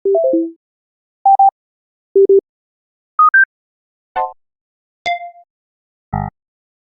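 A run of iPhone system and interface sound effects played one after another with silence between them: a short falling three-note chime, three pairs of clean electronic beeps at different pitches (the last pair rising), a click, a short ping and a brief buzzy tone.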